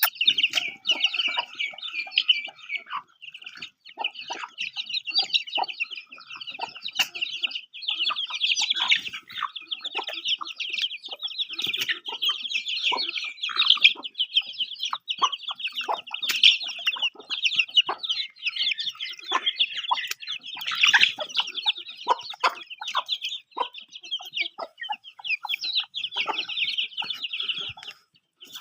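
A brood of chicks peeping continuously in a dense, high-pitched chorus, with a hen's short, lower clucks mixed in.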